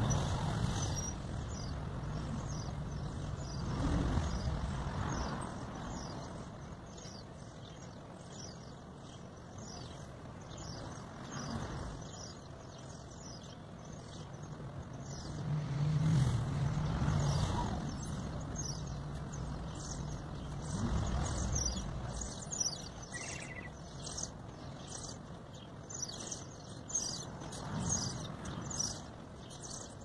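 Outdoor ambience of road traffic passing, louder twice as vehicles go by, with small birds chirping repeatedly over it, the chirps coming thicker toward the end.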